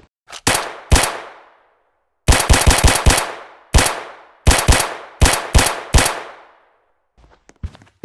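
Gunfire: a couple of single shots, then a rapid burst of about eight, then more short bursts over the next few seconds. Each shot trails off in a long echo.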